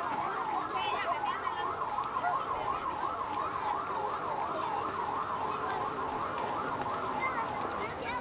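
An electronic siren wailing up and down about three times a second, stopping shortly before the end, over background crowd chatter.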